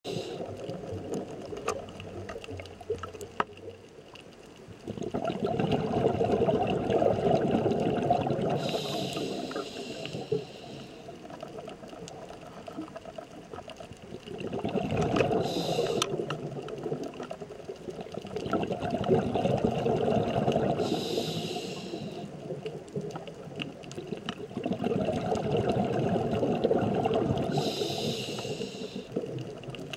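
Underwater scuba breathing through a regulator: a rushing burble of exhaled bubbles and a short high hiss, repeating about every six seconds, four times over, with faint scattered clicks between.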